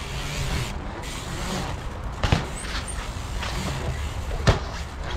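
Two sharp knocks about two seconds apart over a steady low rumble: a mountain bike's tyres and frame hitting hard ground during street riding.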